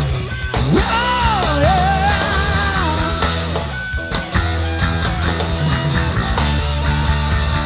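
Live rock and roll band playing an instrumental passage: a lead electric guitar line with pitch bends and upward slides over steady bass and drums.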